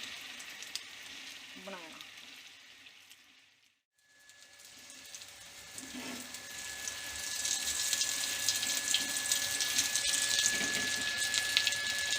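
Aloo tikkis frying in ghee on a hot tawa: a steady, even sizzle. It cuts out to silence about four seconds in, then comes back and builds louder, with a thin steady high tone running under it.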